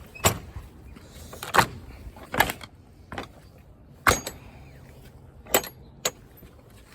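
Something being shut and latched, most likely a gate: about six sharp metallic clanks and rattles, irregularly spaced.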